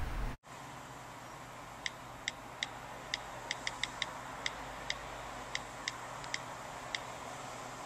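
A series of about fifteen short, sharp clicks at uneven intervals, some in quick pairs, over a steady hiss.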